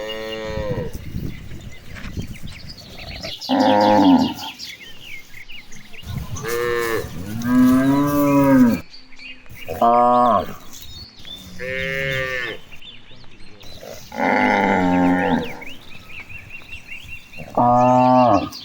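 Cattle mooing again and again, about seven drawn-out calls of roughly a second each, some low and some higher, from more than one animal.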